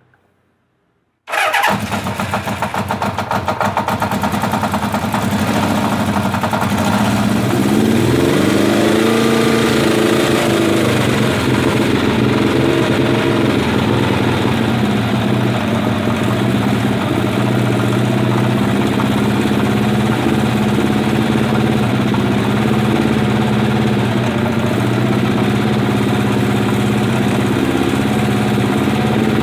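1980 Kawasaki Z500 B's air-cooled four-cylinder engine running, coming in abruptly about a second in, rising and falling in pitch once in a light rev, then idling steadily. Through it runs a knocking, ticking sound whose cause the owner cannot place, a sign of an unknown mechanical fault.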